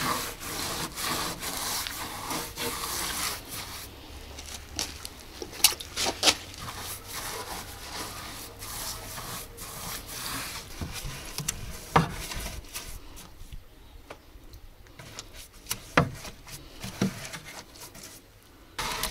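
A large whitewash brush scrubbing lime wash onto rough wooden boards: a run of rasping back-and-forth strokes with a few sharp knocks, quieter in the last few seconds.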